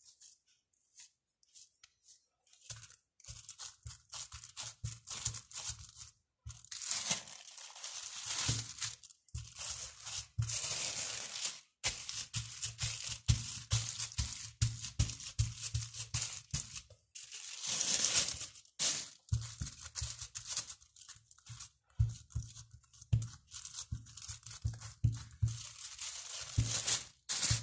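Clear plastic film crinkling and rustling as hands press and smooth it over a raw minced-beef burger patty, starting a couple of seconds in, in uneven swells. A steady low beat of background music runs underneath.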